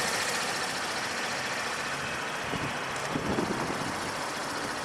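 Holden VF2 Commodore SV6's 3.6-litre V6 idling steadily.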